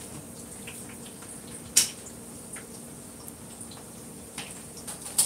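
Quiet room tone with a steady low hum, broken by a few sharp clicks or taps: a loud one about two seconds in, a fainter one later, and another loud one near the end.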